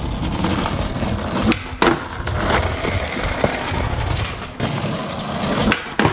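Skateboard wheels rolling on rough asphalt during a backside 180 attempt, with sharp wooden clacks of the tail popping and the board landing about a second and a half in, and more clacks of the board later.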